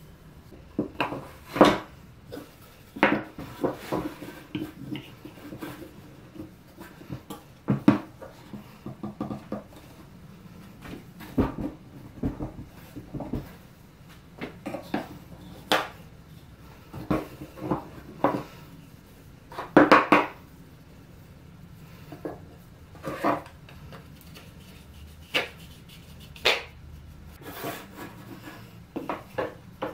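Wooden blocks, boards and a metal rod being handled and set down on a workbench top: irregular knocks and clatter, the loudest a quick double knock about two-thirds of the way through.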